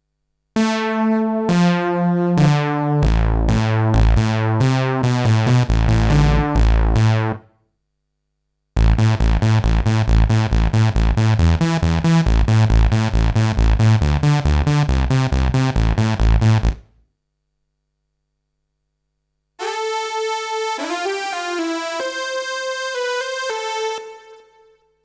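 Roland SH-201 virtual-analog synthesizer playing factory preset patches: three short keyboard phrases, each stopping for a silence of a second or two. The first two are busy rhythmic passages with a heavy bass line; the last is a lead line with sliding pitch.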